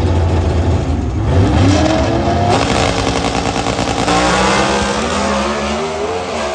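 Super Gas drag cars' V8 engines revving on the starting line, then launching about four seconds in and accelerating hard away, the engine pitch climbing as they run and the sound easing toward the end.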